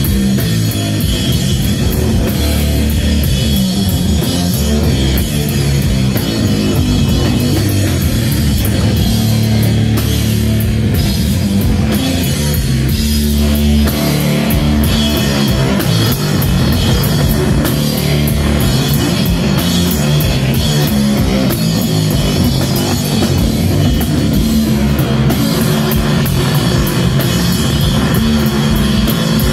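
Sludge metal band playing live and loud: heavily distorted bass and guitar over a drum kit.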